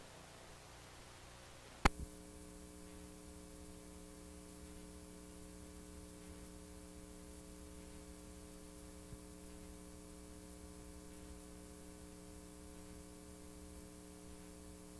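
A single sharp click about two seconds in, then a steady electrical hum with faint hiss from playback of blank videotape at the end of the recording.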